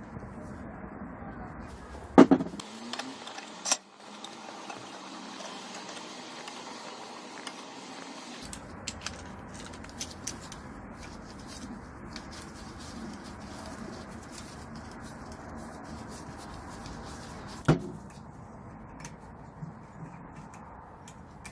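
Bench handling sounds: a sharp knock about two seconds in, another about four seconds in and one more near the end, with scattered small clicks over a steady low hiss.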